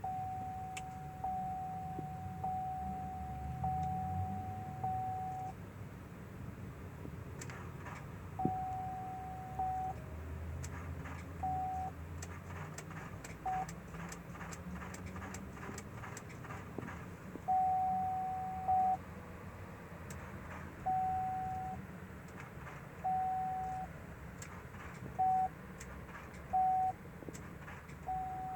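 An electronic beep of one steady pitch sounding in irregular stretches, some a fraction of a second and some several seconds long, with light clicks in between.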